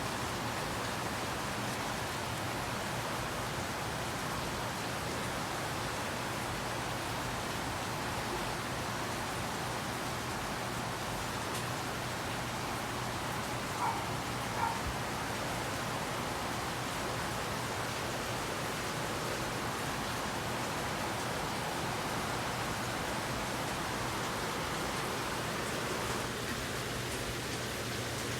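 Steady rain falling, an even hiss with a faint low hum beneath it and two brief small sounds near the middle.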